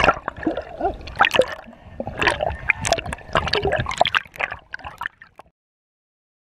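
Seawater sloshing, gurgling and splashing around a waterproof camera as it moves between underwater and the surface in shallow surf, with many irregular sharp splashes. The sound cuts off abruptly about five seconds in.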